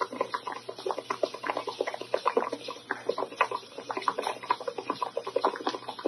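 Pot of water at a rolling boil with lasagna pasta sheets cooking in it: a dense, irregular run of small bubbling pops.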